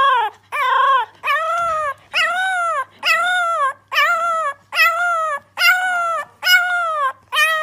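French bulldog puppy howling in short, repeated cries, about ten in a row at a little more than one a second, each rising and then falling in pitch.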